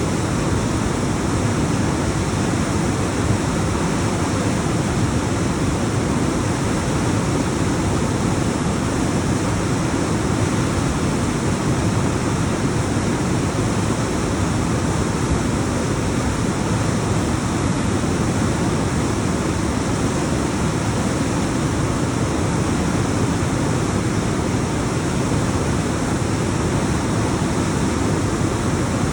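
Alpine waterfall: a steady, loud rush of water tumbling down rocks.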